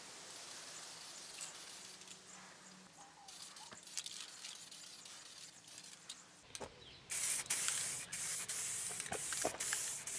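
Aerosol spray-paint can spraying in a series of short hissing bursts, starting about two-thirds of the way in. Before that there is only a faint hiss and one sharp tick about four seconds in.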